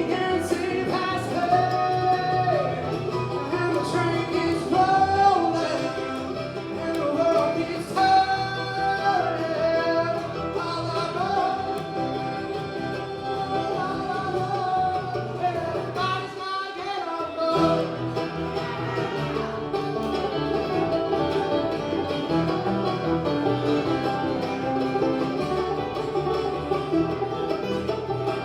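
Bluegrass band playing live: banjo and guitar picking under a lead melody of long held, sliding notes, with a brief drop-out of the low end about two-thirds of the way through.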